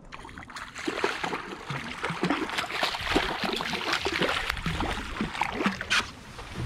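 Hooked striped bass thrashing and splashing at the surface beside a kayak, with a continuous churn of water broken by many short sharp splashes.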